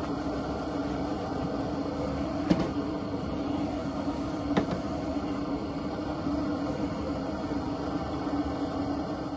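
Steady low hum from the lit propane fish fryer. Two short sharp clicks about two seconds apart come as the containers of fish are handled.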